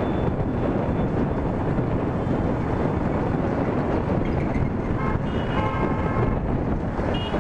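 Wind rushing over the microphone and a Yamaha R15 V3's single-cylinder engine running at road speed in traffic. Vehicle horns sound a few times in the second half: a faint one about four seconds in, a longer toot around five to six seconds, and another near the end.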